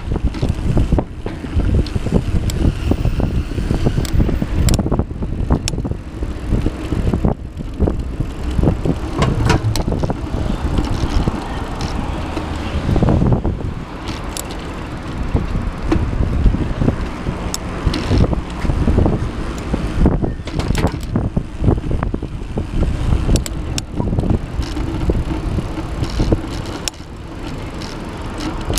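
Bicycle ride on paved footpath: wind buffeting the handlebar-mounted microphone, with tyre and frame rumble and frequent rattling knocks over bumps and slab joints in the path.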